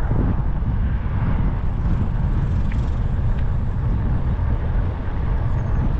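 Steady wind rumble on the microphone mixed with tyre noise from an e-bike riding on pavement at about 11 miles an hour.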